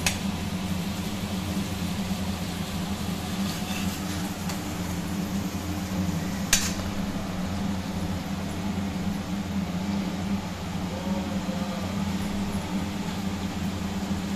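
Onions frying in oil in a steel kadai, sizzling steadily over a constant low hum, with one sharp clink of the steel spoon against the pan about six and a half seconds in.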